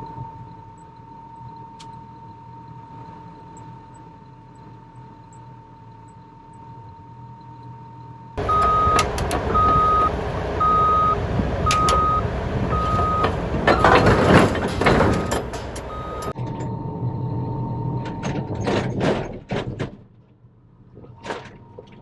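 Diesel engine running with a steady thin whine. For about eight seconds in the middle, louder heavy engine noise comes in with a backup alarm beeping steadily about once a second, and there is a loud rush of noise partway through. Near the end there are a few sharp knocks.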